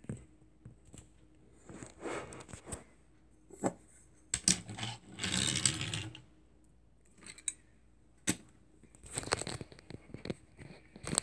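Handling noises of die-cast toy vans: scrapes, rustles and sharp clicks in irregular bursts as they are picked up, turned over and set down on a tabletop. The longest scrape comes about halfway through.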